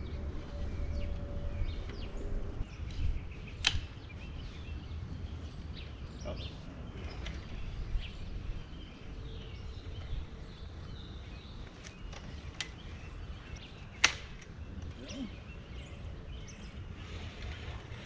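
Telescoping flagpole being extended section by section, with a few sharp clicks as the sections slide and lock, the loudest near the end. Wind rumbles steadily on the microphone.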